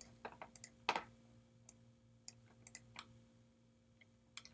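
Faint, scattered clicks of a computer mouse, about eight spread irregularly, the loudest about a second in, over a low steady hum.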